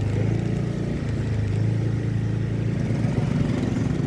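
Small motorcycle engine running steadily under way on a rough dirt road, its revs wavering a little higher near the end.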